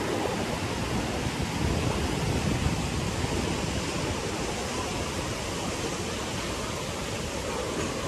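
Steady rushing wash of small ocean waves breaking and running up a sandy beach.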